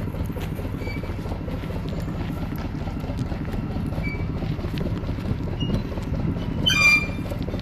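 Locomotive moving slowly along the track, a steady low rumble of engine and wheels on rail, with a brief high-pitched squeal of wheels on rail about seven seconds in.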